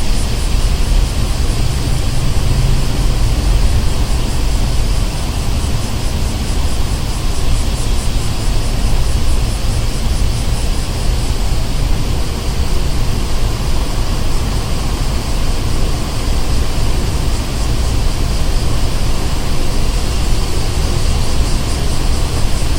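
Street ambience: the steady low rumble and hiss of road traffic, with no single event standing out.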